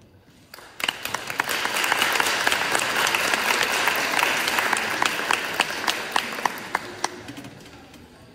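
Audience applauding at the end of a piece. The clapping starts suddenly just under a second in, holds full for several seconds with a few single claps standing out, then thins and dies away about a second before the end.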